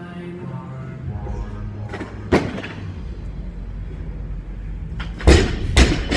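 A loaded barbell with bumper plates dropped onto a lifting platform after a clean: two heavy thuds about half a second apart near the end, the drop and its bounce, with a single sharper knock a little over two seconds in. Background hip-hop music plays underneath.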